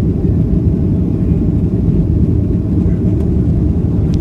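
Airliner cabin noise during takeoff: a loud, steady low rumble of the jet engines and airflow, heard from inside the cabin.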